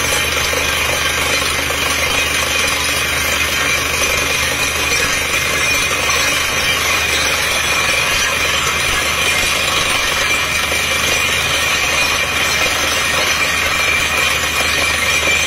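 Truck-mounted water well drilling rig drilling down-the-hole with an air hammer: a loud, steady clatter and rush of compressed air blowing rock dust up out of the borehole, over the rig's running engine and compressor.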